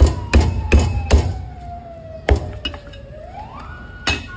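Heavy cleaver chopping through roast duck onto a thick wooden chopping block: four quick chops in about the first second, then two more spaced out. Behind them a siren-like tone slowly glides down, then rises again.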